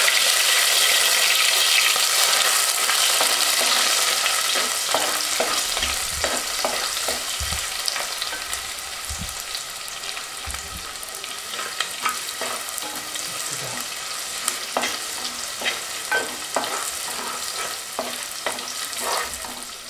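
Chopped shallots sizzling in hot oil with fenugreek seeds in a clay pot, the tempering for a fish curry, while a spoon stirs them. The sizzle is loudest just after they go in and slowly dies down. From about five seconds in, the spoon scrapes and taps against the pot now and then.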